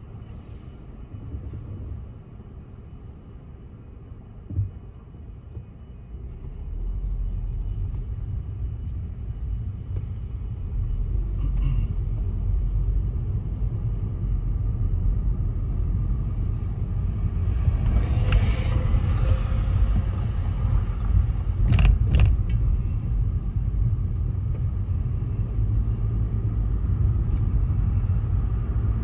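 Car engine and road rumble heard from inside the cabin, low at first while the car waits, then rising about seven seconds in as it pulls away and drives on. A brief rush of passing traffic comes a little past halfway, followed by a couple of sharp knocks.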